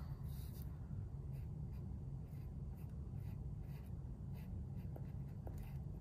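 Coloured pencil scratching on drawing paper in short strokes, about two a second, as short lines are drawn, over a steady low hum.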